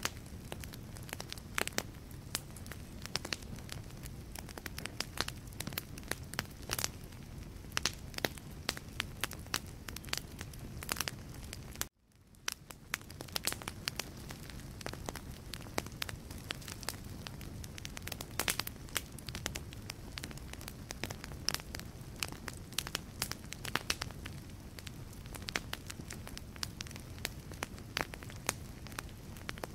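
Wood fire burning in a fireplace: frequent sharp crackles and pops from the burning logs over a steady low rumble of the flames. About twelve seconds in, the sound cuts out for a moment and fades back in.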